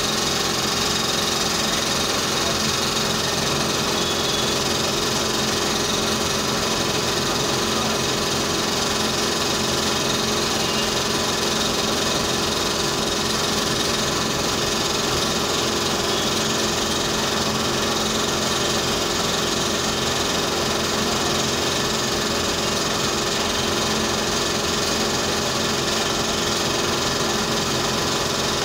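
Dental equipment running continuously with a steady mechanical whir: several fixed tones over a hiss, unchanging in level.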